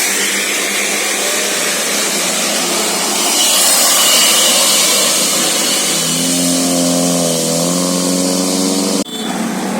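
A bus engine running loud. About six seconds in, a telolet basuri multi-tone musical horn sounds a few stepped chord notes for about three seconds and stops abruptly.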